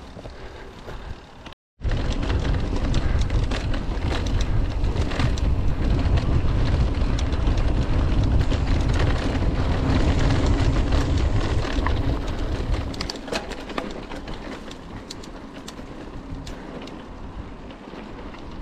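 Mountain bike rolling over a rough dirt and stone trail, heard through an action camera's microphone: heavy wind rumble and tyre noise with scattered clicks and rattles. It cuts in loud about two seconds in and eases off after about thirteen seconds.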